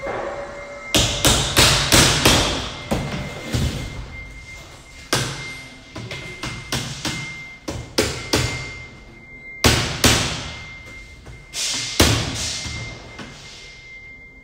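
Steel claw hammer striking a galvanized sheet-metal duct and its flange frame, knocking the frame onto the duct end. Irregular blows, some in quick runs of several, each metallic strike ringing briefly.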